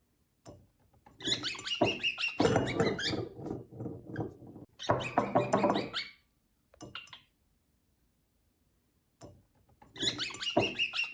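A pet animal's noises in four bursts, the longest about three seconds, separated by silent gaps.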